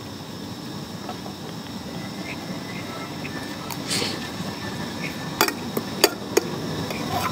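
A person eating roasted chicken by hand: chewing and mouth noises over a steady room hum, with a short smacking burst about four seconds in and three sharp clicks a little later.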